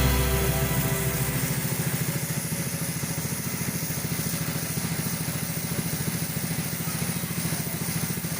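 Pressure washer's motor and pump running steadily, with a fast, even pulsing hum. Background music fades out at the start.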